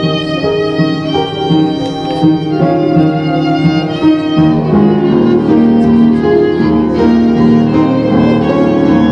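Violin playing a melody of held notes over keyboard accompaniment, with sustained low notes joining about four and a half seconds in.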